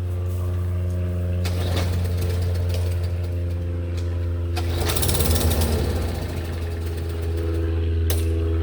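Steady low mechanical hum with two stretches of louder rattling, whirring noise, about a second and a half in and again about five seconds in: attempts to start a lawn mower that will not start.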